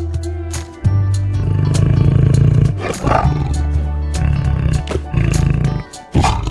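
Tiger roaring in long low roars, breaking off briefly about a second in and again near the end, over background music with a steady beat.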